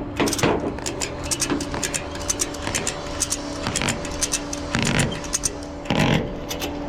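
A truck engine idling with a steady hum, under scattered clicks and rattles and two heavier knocks near the end.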